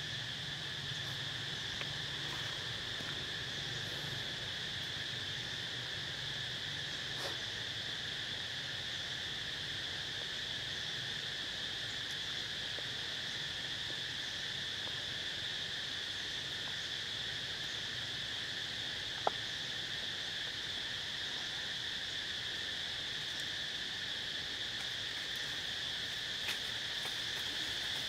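Steady chorus of forest insects: a continuous high-pitched drone that never breaks, with one sharp click about two-thirds of the way through.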